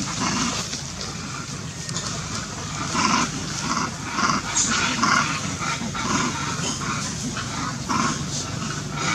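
Monkeys calling: a quick run of many short calls and squeals, with one brief rising squeak about halfway through.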